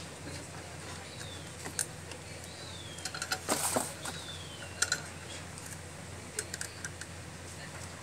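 Small clicks and rustles of wire leads and plastic connectors being handled and pushed onto the thermostat terminals of a Racold electric water heater, with a louder rustling scrape a little over three seconds in.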